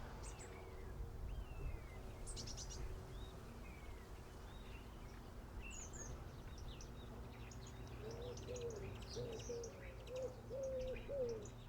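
Small birds chirping and twittering over a faint, steady low background rumble. From about two-thirds of the way in, a run of short, lower repeated notes joins them.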